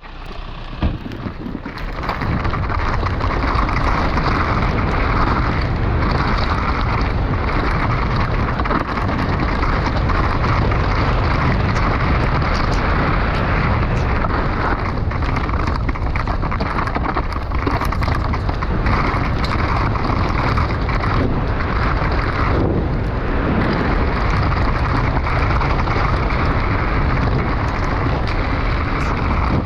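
Steady rushing noise of an FPV drone in fast flight: its propellers whirring, with wind on the onboard microphone. It builds up over the first two seconds, then holds level.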